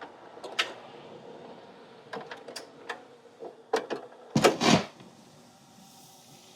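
A series of sharp clicks and knocks over a faint steady hiss, with a cluster of heavier knocks about four and a half seconds in.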